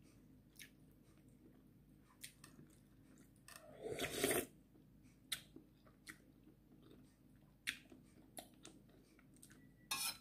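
Faint chewing and small mouth clicks from someone eating ramyeon noodles, with a louder slurp of noodles about four seconds in. A metal utensil clinks against the stainless steel pot near the end.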